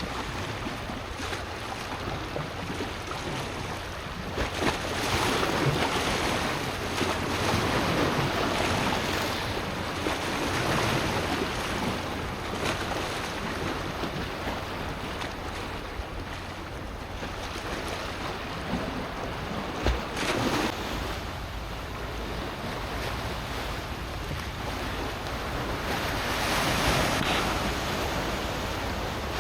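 Sea waves washing and breaking, the surge swelling and easing every few seconds, with wind buffeting the microphone.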